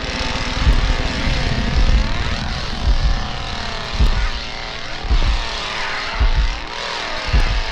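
A chainsaw engine revving, its pitch rising and falling again and again, over repeated heavy low thumps.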